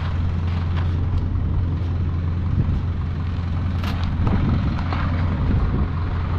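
Steady low mechanical rumble, with a few light knocks and clicks over it, the sharpest about four seconds in.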